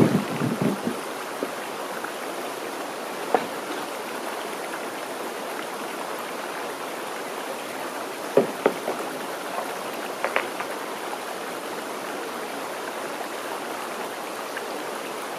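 A steady rushing hiss, with a cluster of hollow bumps and knocks in the first second as a man climbs into a wooden cedar-strip canoe and pushes off. A few lighter single knocks follow later, about three, eight and ten seconds in.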